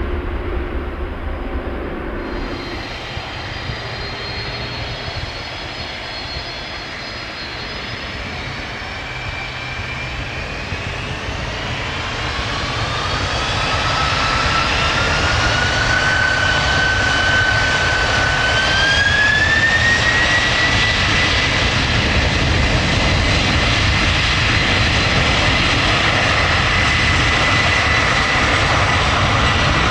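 Boeing 747 freighter's four jet engines spooling up to takeoff power: a rising whine that climbs in two steps and then holds steady while the overall engine noise grows louder. For about the first two seconds, before a cut, it is an Airbus A380's engines instead.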